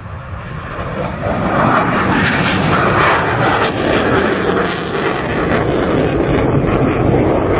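Aircraft engine noise from a fixed-wing plane flying past, growing louder over the first couple of seconds, then holding loud and steady.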